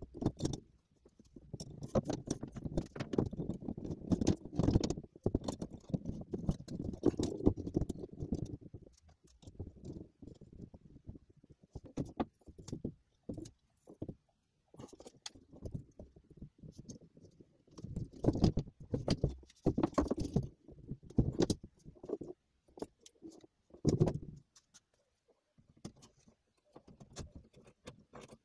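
Handling noise from metal tool parts: irregular clicks, knocks and clinks, with scraping and rubbing as parts are fitted and shifted on a wooden workbench. There is no running motor.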